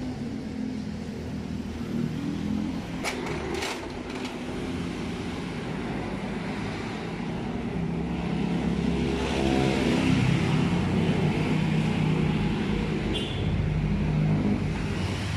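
A motor vehicle engine running, growing louder from about eight seconds in, with a few sharp clicks about three seconds in.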